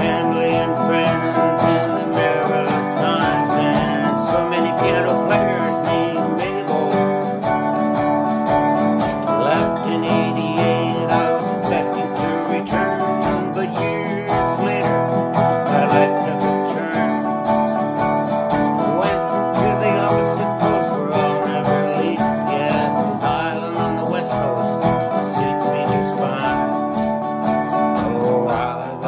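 Acoustic guitar strummed steadily while a man sings along, an amateur performance of a self-written song.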